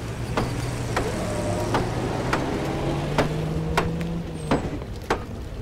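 Low, steady machine hum whose pitch steps up about halfway through, under a series of sharp knocks roughly every half second to second, with a short high squeak near the end.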